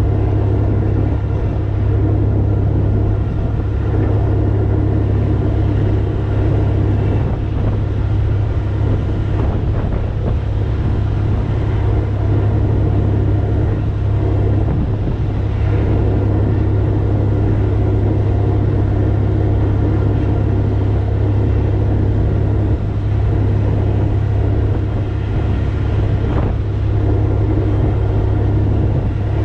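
Tug's newly installed Caterpillar marine diesel running steadily under way on a trial run, a constant low drone with no change in pitch.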